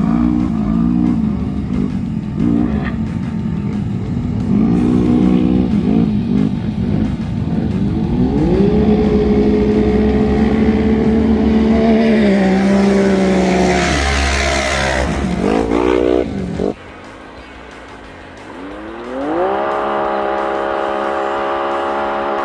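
Side-by-side race car engine accelerating: its pitch climbs and then holds steady, the way a belt-driven CVT keeps the engine at a steady speed as the car gathers pace, with a loud rush of noise just past the middle. The sound cuts off abruptly about two-thirds of the way through, then the engine climbs and holds steady again.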